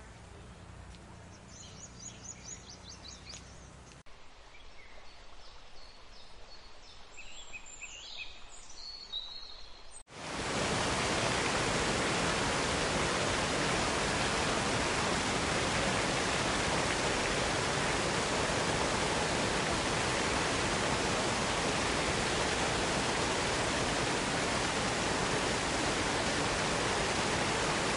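Birds chirping in short high calls over faint outdoor ambience. About ten seconds in, the sound cuts abruptly to the loud, steady rush of water from a rocky stream cascade.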